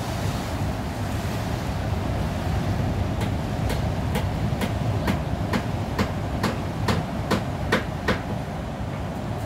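Steady rush of ocean surf breaking on a sandy beach, with wind on the microphone. From about three seconds in, a run of about a dozen sharp clicks comes at roughly two a second and stops near the end.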